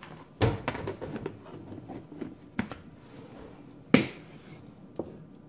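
Metal slotted spoon scooping fried dough pieces out of hot oil, clicking and knocking against a cast-iron pan: a quick run of clicks in the first second or so, single knocks later, and the loudest knock about four seconds in.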